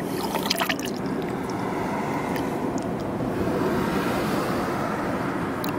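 Coolant pouring in a steady stream from a jug into a plastic funnel in the engine's filler neck, a continuous splashing of liquid as the cooling system is refilled. A few light clicks about half a second in.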